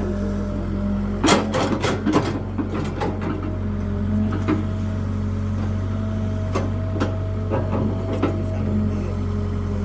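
Excavator engine running steadily, with a burst of sharp clanks and knocks about a second in and a few single knocks later on.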